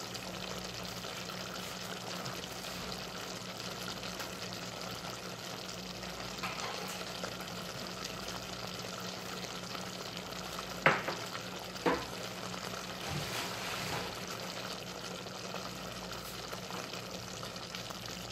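Chicken heart and vegetable stew simmering in its pot: a steady hiss of cooking sauce over a low hum. Two sharp knocks about a second apart come a little past the middle.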